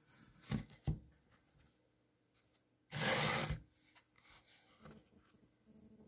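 Handling noise close to the microphone: two short knocks, then a half-second scraping rub about three seconds in, followed by a few faint clicks. A low steady hum sets in near the end.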